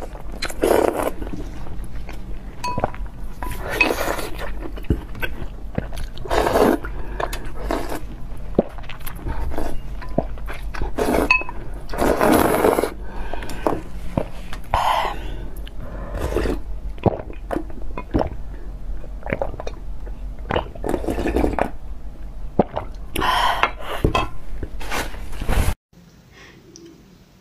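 Close-miked eating sounds: wet chewing and smacking of soft food in short bursts a second or two apart, with small clicks between. The sound breaks off sharply near the end.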